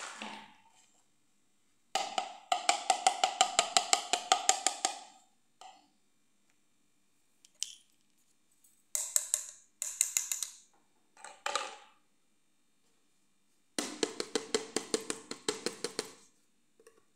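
Rapid hollow clicking from small plastic toys being handled, in two long runs of about ten clicks a second, each with a ringing pitch that is higher in the first run and lower in the second. Shorter, brighter bursts of clicking and scraping come in between.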